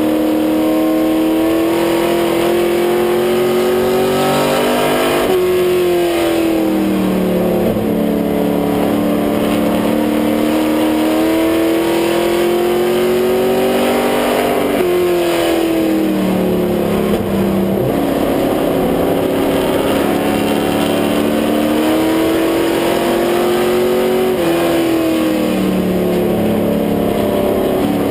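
Stock-car racing engine heard from inside the cockpit, running hard. Its pitch climbs slowly for several seconds and then drops sharply, three times: full throttle down each straightaway, then lifting off for the turns of the short oval.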